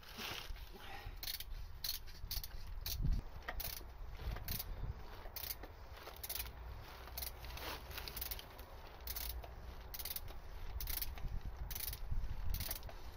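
Hand ratchet clicking in repeated short strokes as it turns a socket on the oil sump bolt under a BMW F10 M5's engine, a bolt that was done up very tight.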